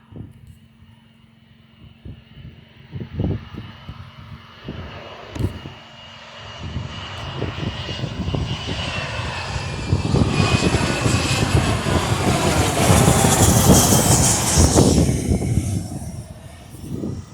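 Jet airliner passing close by: its engine noise builds over several seconds and peaks with a high whine that slides slightly lower. It then falls away quickly about three seconds before the end.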